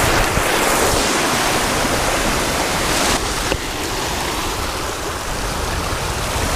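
Surf washing over lava rocks at the water's edge: a steady hiss and rush of churning white water, a little louder in the first second or so.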